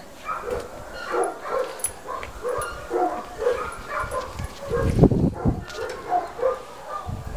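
Dog whining and yipping in short repeated calls, a couple a second, with a louder burst about five seconds in.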